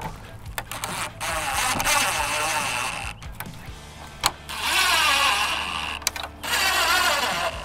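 Cordless impact driver running screws into a plastic grille to fix an insert in place, in three runs: a long one about a second in, then two shorter ones later, with small clicks between them.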